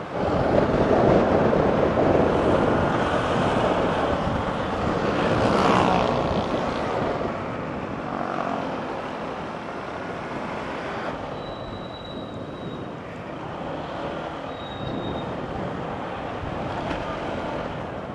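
Motor scooter riding along a road: wind rushing over the microphone mixed with engine and tyre noise, loudest in the first few seconds and easing off after.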